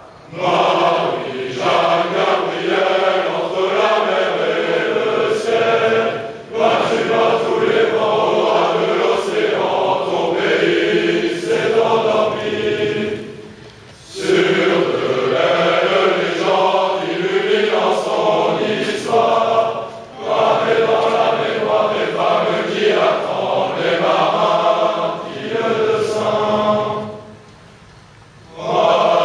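A chorus of young men singing a traditional song together, in long phrases with brief breaks between them.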